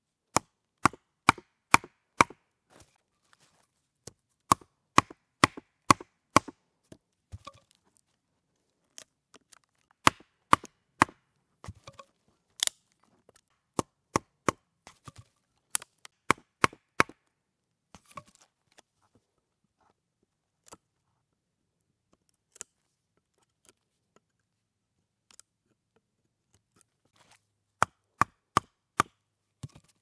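Batoning: a wooden baton knocking on the spine of a fixed-blade bushcraft knife (Buck Selkirk), driving the blade through a thin stick laid on a stump. Sharp wooden knocks come in runs of several at about two a second, with pauses between runs.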